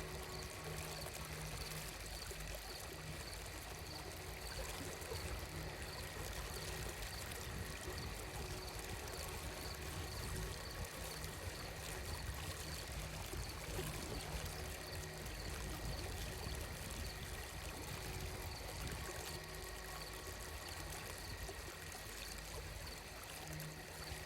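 Ambient sleep soundscape of steadily running water, like a small stream, with faint held tones underneath and a soft high note pulsing a few times a second.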